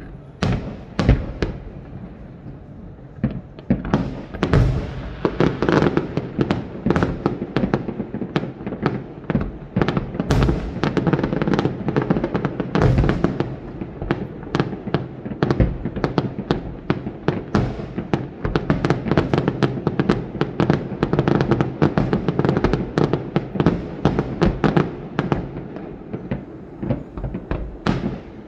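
Aerial fireworks display going off in a dense barrage of bangs and crackles. It is sparser for the first few seconds, then comes thick and fast from about four seconds in, and eases slightly near the end.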